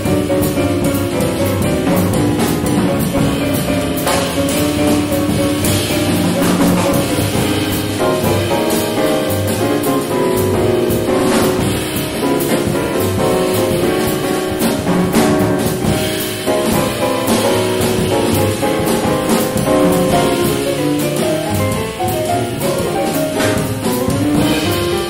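Live jazz from a piano trio: a stage keyboard with a piano sound plays the lead line over plucked double bass and a drum kit, with saxophone and trumpet silent.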